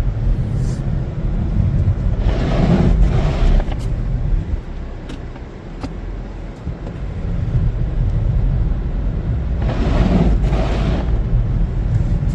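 A car driving, heard as a steady low road-and-engine rumble, with two louder rushing swells, one about two seconds in and one about ten seconds in.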